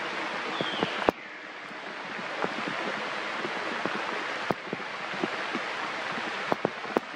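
Steady outdoor hiss with scattered small clicks and crunches as a macaque bites and chews a soft fruit close by. A brief high falling squeak comes near the start.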